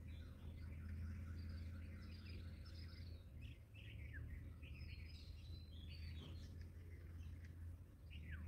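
Birds chirping and calling with many short, high notes, some sweeping downward, over a faint low steady rumble.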